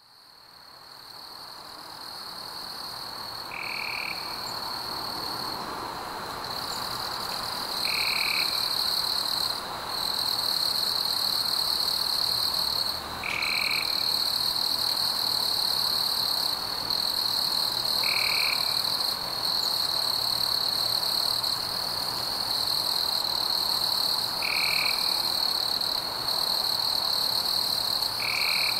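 Night insects trilling in a steady, high-pitched chorus that fades in over the first several seconds. A short, lower call repeats about every five seconds, six times in all.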